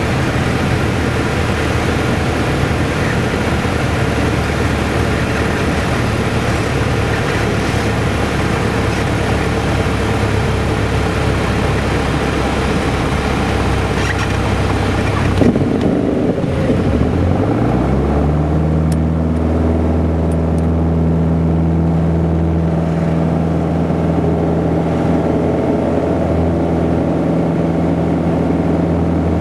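Aircraft engine and airflow noise in the cockpit through the flare, touchdown and rollout. About halfway through, the rushing noise drops off abruptly and the engine pitch sinks, then settles into a steady, lower hum as the plane rolls along the runway. A few faint clicks follow.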